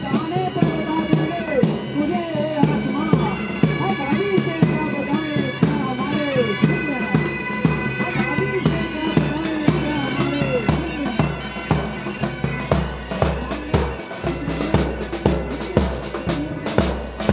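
Military pipe band playing a march: bagpipes carry the tune over their steady drones, and from about ten seconds in, bass and side drums come in with a strong, regular march beat.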